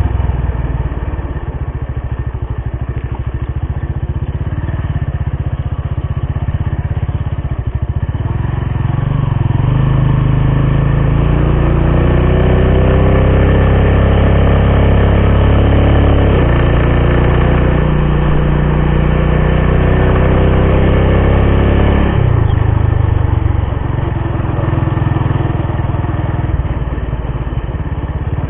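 Engine of a road vehicle under way, over a steady rumble of road and wind. About twelve seconds in, the engine note climbs as it speeds up, drops suddenly a few seconds later and climbs again; about three-quarters of the way through it eases off and the sound gets quieter.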